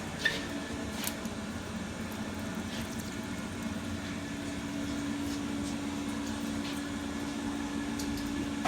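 Turnmaster 15 x 50 lathe's electric coolant pump running with a steady hum, with a few light clicks about a second in; it stops at the very end.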